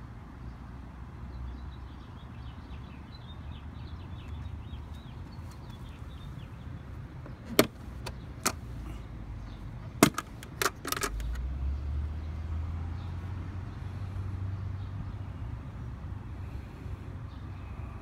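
Snap latches on a clear plastic electrical enclosure clicking open: a handful of sharp plastic clicks about halfway through, over a low background rumble that swells in the second half.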